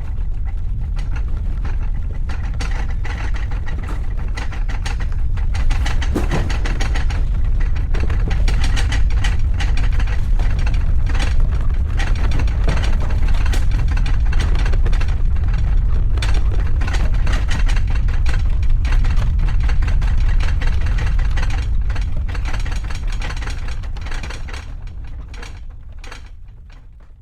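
Earthquake sound effect: a deep low rumble with household objects shaking and rattling. It builds over the first several seconds and fades out near the end.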